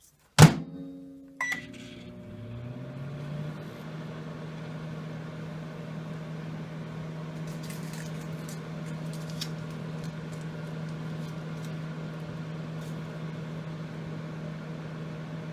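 Microwave oven door clicking shut, a short keypad beep, then the oven starting up: its hum rises in pitch over about two seconds and settles into a steady hum as it runs.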